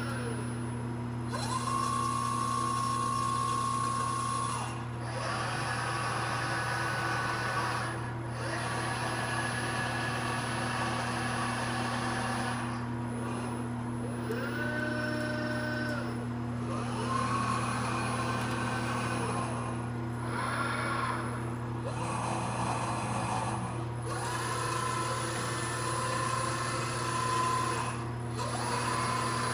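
Nachi SH200 industrial robot's servo motors whining as the arm runs through a sequence of moves. Each move is a tone that rises, holds steady for a few seconds and falls away, over a constant electrical hum.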